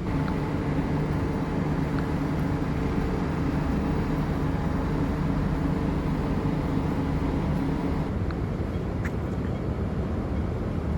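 Steady motor hum at a constant pitch over a low rumble; the hum cuts off about eight seconds in, leaving the rumble.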